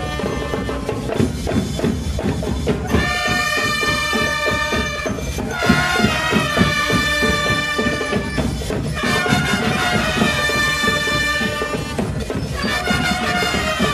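School marching band playing: brass instruments sound held chords in phrases of about three seconds with short breaks between them, over a steady drum beat.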